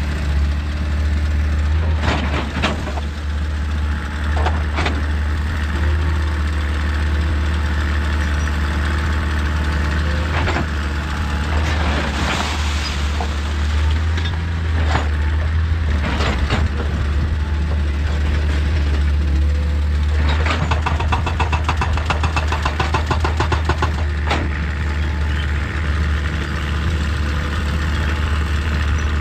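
Excavator's diesel engine running steadily under load, with scattered sharp knocks and scrapes of rock being worked, and a fast rattling run lasting a few seconds about two-thirds of the way through.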